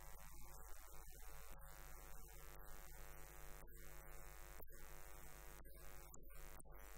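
Steady electrical mains hum, a low buzz made of many evenly spaced tones, with brief dropouts about once a second.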